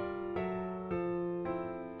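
Background music: a piano-like keyboard playing chords, a new chord about every half second.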